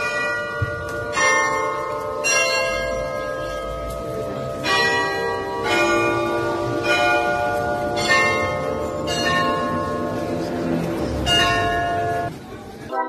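Bells of the Graz Glockenspiel playing a slow tune, a new note or chord struck about once a second and each left ringing. The bells stop suddenly near the end.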